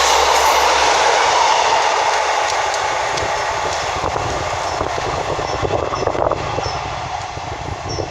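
Class 156 Super Sprinter diesel multiple unit running along the platform, a steady rumble and rail noise with a few clicks from the wheels over rail joints, slowly fading.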